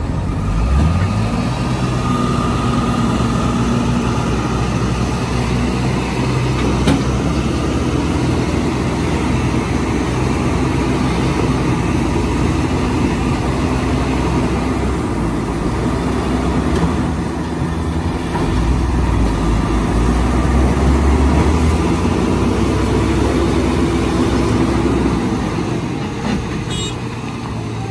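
Diesel engines of JCB backhoe loaders running hard under load, pushing a loaded truck trailer stuck in mud. The engine note grows deeper and louder about two-thirds of the way through, then eases near the end.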